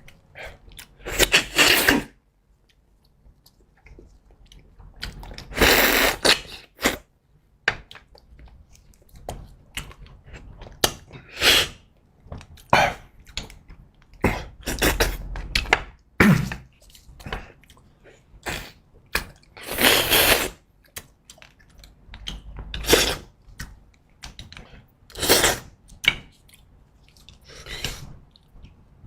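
Close-miked eating sounds: loud, irregular slurps and chewing of beef bone marrow, with quieter pauses in between.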